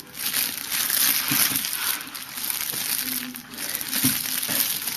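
Crinkly fabric baby toy being rustled and crumpled in the hands, a continuous crackling rustle.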